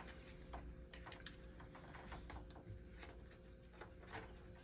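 Faint scattered clicks and ticks of the yellow plastic oil dipstick cap on a Yamaha jet ski engine being twisted loose by hand, over a faint steady hum.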